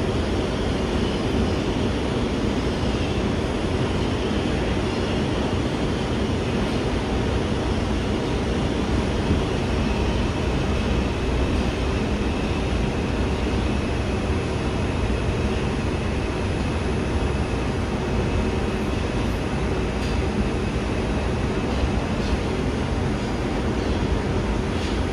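R142 subway train running between stations: a steady rumble of wheels on rail and running gear. A faint high whine comes in about ten seconds in and fades out a few seconds before the end.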